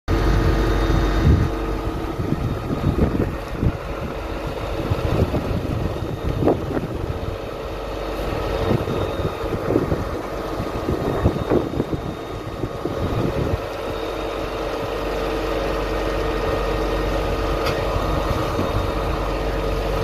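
A fire engine's engine running steadily at its pump, a constant drone under a low rumble of wind on the microphone. Scattered short crackles come through it.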